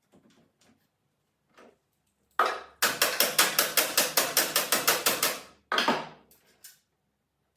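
A rapid, even run of sharp mechanical knocks, about six or seven a second for a couple of seconds, from a shop tool at work, with a low hum under it; a shorter burst of the same follows near the end.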